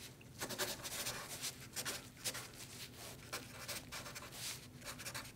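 A pen drawing on paper, faint scratching in quick, irregular strokes.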